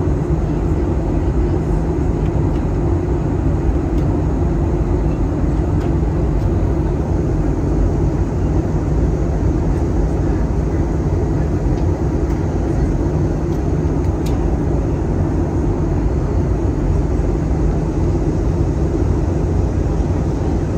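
Steady cabin noise of an airliner on descent: engine and airflow rumble heard from inside the passenger cabin, strongest in the low range. A faint click sounds once, about two-thirds of the way through.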